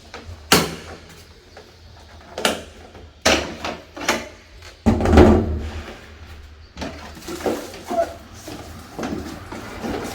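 Knocks and clatter of an air conditioner unit and its packaging being handled during unboxing: several sharp knocks, a heavier thump about five seconds in, then lighter scraping and rustling.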